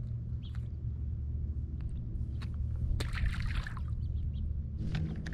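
Water splashing and sloshing beside a bass boat over a low steady rumble, with scattered small splashes and a louder splash about three seconds in.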